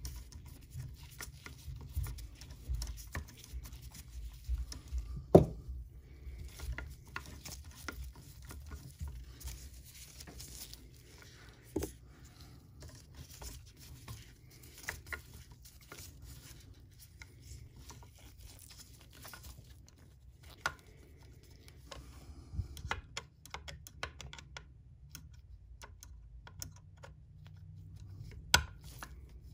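Screwdriver driving the small screws of the stitch-selector indicator plate on a vintage Singer 500J sewing machine: scattered small clicks and scrapes of the tool in the screw heads and against the metal, with a few sharper ticks, the loudest about five seconds in.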